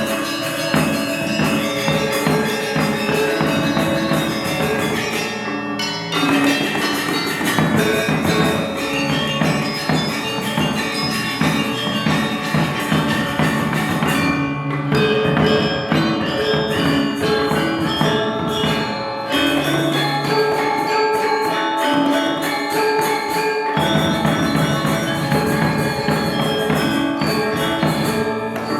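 Balinese gamelan ensemble playing a tabuh telu piece: bronze metallophones and gongs ringing in dense, fast-struck patterns, with percussion underneath. The texture thins out briefly twice, about five and fourteen seconds in.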